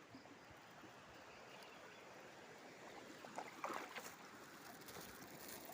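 Faint water noise around a raft, with a few soft knocks about three and a half to four seconds in.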